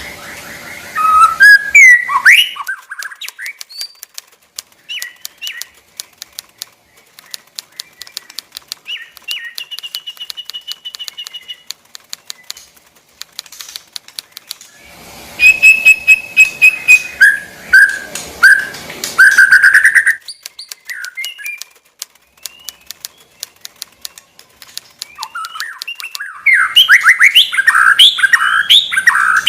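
White-rumped shama (murai) singing in three loud bursts of fast whistled phrases: near the start, around the middle and near the end. Between the bursts come sharp clicks and soft short calls.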